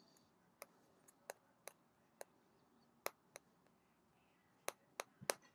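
A series of light, sharp clicks and taps at an irregular pace, coming closer together near the end, over quiet room tone.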